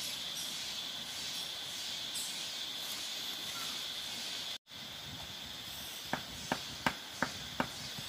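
Steady high-pitched drone of rainforest insects, broken off for an instant about halfway through. Near the end come five sharp clicks in quick succession.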